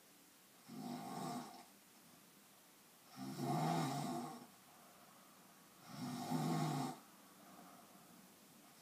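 Snoring: three drawn-out, pitched snores about every two and a half to three seconds, with quiet between them and a fourth starting at the very end.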